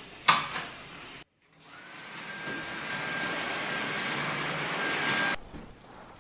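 Vacuum cleaner running steadily for about four seconds with a thin high whine over its rushing noise, then switched off abruptly. A few sharp knocks and clicks come just before it.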